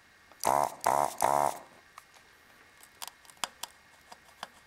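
Hakko FR-300 desoldering tool's vacuum pump buzzing in three short bursts, each about a third of a second, as the trigger sucks molten solder from a through-hole joint. A few light clicks follow as the loosened capacitor is worked free of the board.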